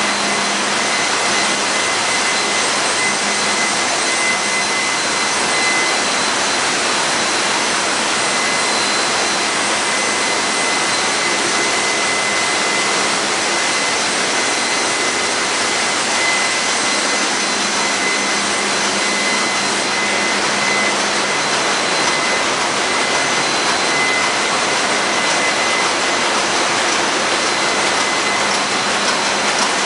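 Steady, loud machinery noise of a running ship's engine room, with a few steady high whines over a dense hiss, from the pumps, generators and fans running together.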